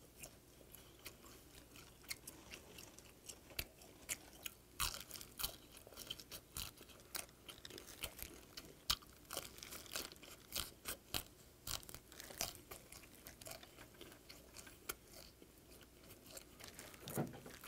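Close-miked chewing of salt-grilled whiteleg shrimp, with many irregular small crisp crunches as the shrimp is bitten and ground between the teeth.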